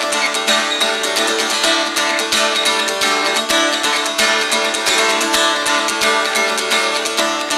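Guitar strummed in a quick, steady rhythm, chords ringing on.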